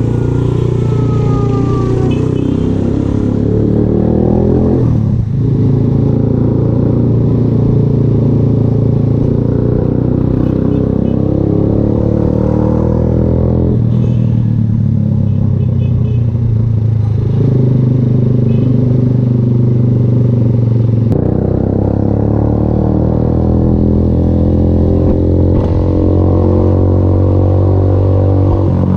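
VLR200 motorcycle engine running through an aftermarket Devil exhaust while riding. Its pitch climbs under throttle and drops at gear changes about five, fourteen and twenty-one seconds in.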